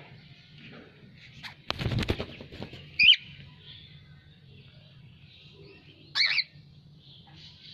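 A cockatiel flutters its wings in a short burst, then gives two loud, short calls about three seconds apart. Faint bird chirping goes on in the background.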